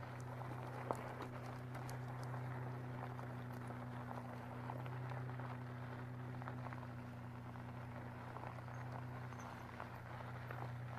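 E-bike tyres crunching and crackling over a loose gravel road at slow riding speed, with scattered small stone clicks, over a steady low hum.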